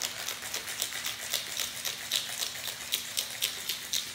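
Ice cubes and cold coffee rattling inside a metal cocktail shaker being shaken hard, a steady rhythm of about four rattles a second.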